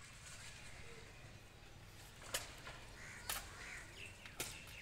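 Faint crow cawing over low outdoor background hum, with three sharp clicks about a second apart standing out as the loudest sounds.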